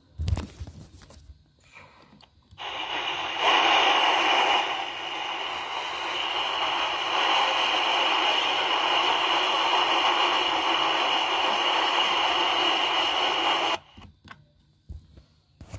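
Analog TV static: the steady hiss of a set with no station tuned in. It comes on about two and a half seconds in and cuts off suddenly near the end.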